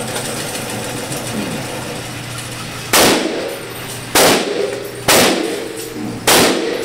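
Beretta pistol firing four shots about a second apart, starting about three seconds in, each shot followed by a short echo; before the first shot only a steady background hum.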